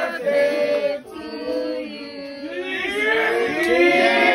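A group of people singing together in long, drawn-out notes, several voices at once.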